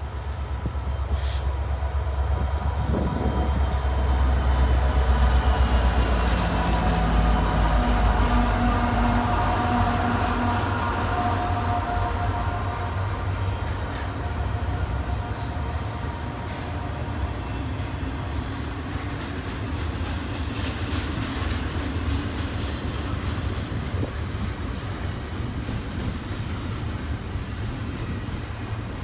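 Union Pacific diesel locomotives (SD70ACE-type) under power pulling a double-stack container train past. Their engine rumble is loudest a few seconds in, with a high whine that falls in pitch as they go by. The stack well cars then roll past with steady wheel noise and light clickety-clack.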